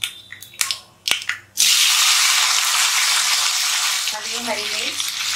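Mustard and cumin seeds in hot oil crackling with sharp, separate pops. About one and a half seconds in, chopped tomatoes are tipped into the oil and a loud, steady sizzle starts, easing slightly near the end.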